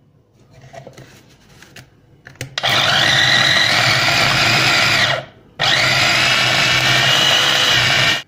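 Kenwood mini chopper's motor grinding raw boneless chicken with green chillies and spices, run in two bursts of about two and a half seconds each. At the end of the first burst the motor whine falls in pitch as it spins down, and the second burst cuts off sharply. A few light handling knocks come before the first burst.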